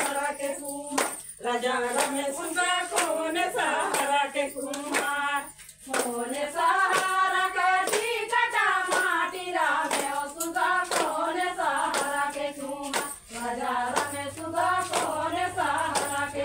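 A group of women singing a Chhattisgarhi Suva (Suga) folk song together in unison, with regular handclaps keeping time. The singing breaks off briefly about five and a half seconds in, then picks up again.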